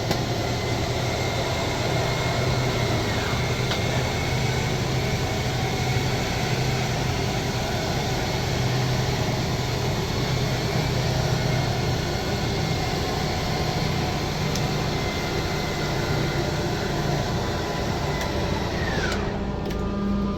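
Motorhome's electric slide-out mechanism running steadily as the two rear slide rooms extend, a continuous mechanical hum with a whine. Near the end the whine drops in pitch and stops as the slides reach full extension.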